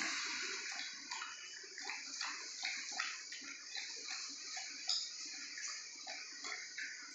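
Indian mastiff (Bully Kutta) eating moistened meat-and-kibble from a steel plate: irregular wet slurping and chewing.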